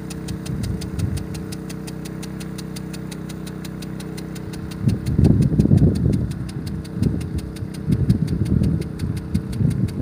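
A 5-horsepower petrol engine driving the irrigation pump runs steadily, with a fast, even ticking over it. From about halfway through, loud irregular gusts of rumbling noise come and go.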